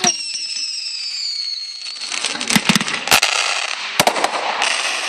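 Fireworks going off: a high whistle slowly falling in pitch for the first two seconds or so, then crackling with a run of sharp bangs.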